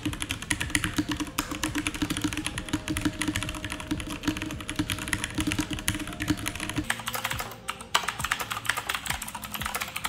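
Typing sample on an ASUS ROG Falchion's Cherry MX mechanical switches: a quick, continuous run of key clacks. About seven seconds in it changes to typing on a Corsair K70 MK2 with loud Cherry MX Blue switches.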